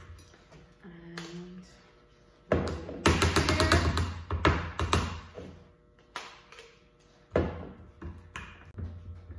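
Metal spoon scraping and knocking against a stainless steel pie pan and the blender cup as sticky pecan-date crust mixture is scooped out and spread. It comes as a rapid clatter of strokes starting about two and a half seconds in, with another knock burst later.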